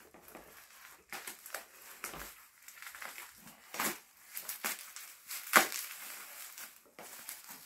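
Plastic packing wrap and bubble wrap crinkling and rustling as it is pulled and unwound by hand, in irregular crackles, the sharpest about five and a half seconds in.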